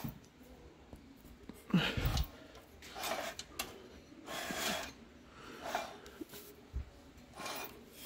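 A person breathing close to the microphone, a breath every second or so, with a low bump about two seconds in.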